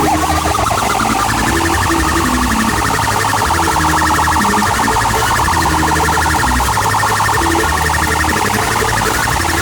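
A car sound system's speaker wall (paredão) blasting a loud electronic siren-like warble. A short rising sweep turns, about a second in, into a fast pulsing tone over a deep, steady bass.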